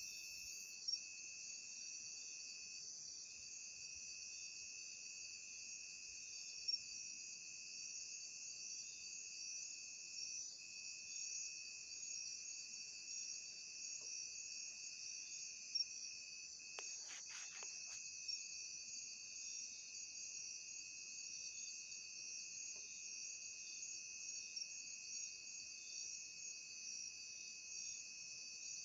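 Steady chorus of night insects such as crickets: a continuous high shrill with a steady trilling tone a little lower, broken by a few faint clicks.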